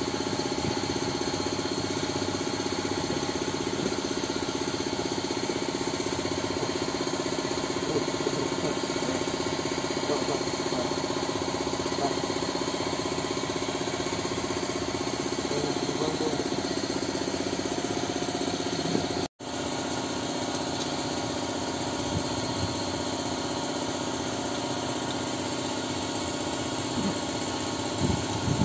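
Steady drone of an engine idling in the background, with a few light metallic clicks and taps. The sound cuts out for an instant about two-thirds of the way through.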